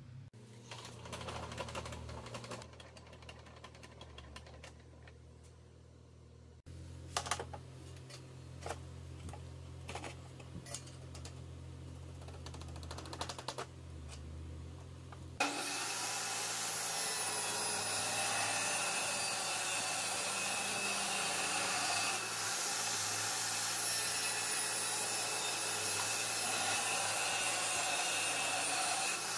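A few sharp clicks and knocks as the table saw's rip fence is set. About halfway through, the saw's motor starts abruptly and runs loud and steady, its blade spinning free just before the board is fed in.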